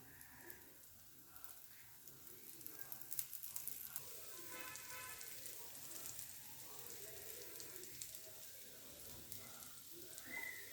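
Dosa batter sizzling and frying on a hot griddle: a faint steady hiss with a spell of crackling about three seconds in.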